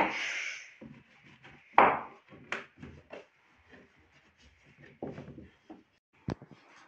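Cloth wiping and rubbing over a carved wooden bed headboard, with scattered knocks and taps against the wood. A sharp hit with a short hiss opens it, and a single sharp click comes near the end.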